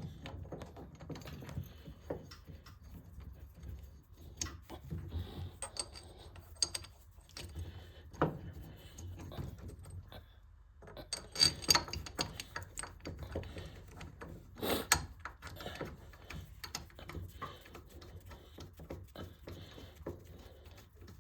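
Bolts and a homemade steel wheel puller clinking and rattling against a garden tractor's rear axle hub as the puller is fitted and its bolts are threaded in by hand: scattered light metallic clicks, with a couple of louder clacks around the middle and later on.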